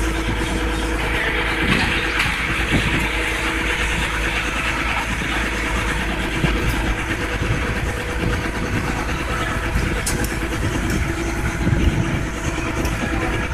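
Motorboat engine running steadily under way, over a constant low rumble.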